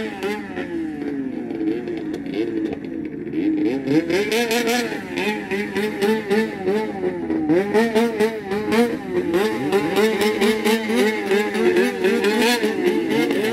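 Several two-stroke racing snowmobiles running a snocross heat, their engines revving up and down over and over, with several rising and falling pitches overlapping.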